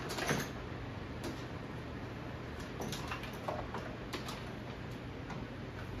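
Light clicks at irregular moments and a short rustle right at the start, over a steady low hum: handling of the ceiling fan's power cord and plug as it is plugged back in.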